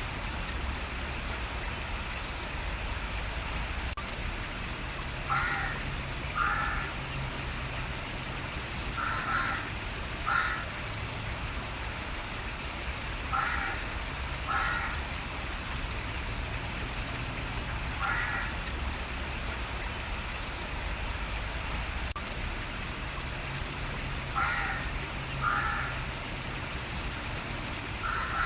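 Running water flowing steadily, with a bird giving short calls, mostly in pairs about a second apart, every four seconds or so.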